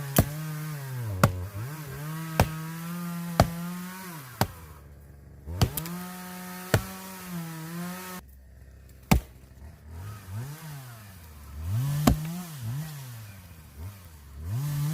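Chainsaw running, its engine pitch sagging and recovering as it works, then rising and falling about once a second near the end. Sharp axe chops land about once a second over the first half, with a couple more later.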